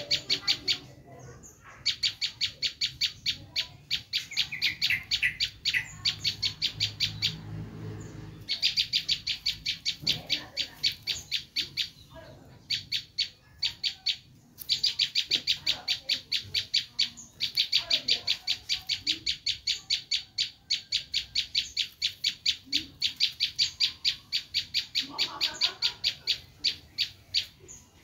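Prenjak lumut (a prinia) giving its shrill 'menjerit' (screaming) call: long runs of rapid, sharp, high notes, many a second, in bursts of one to three seconds with short breaks between.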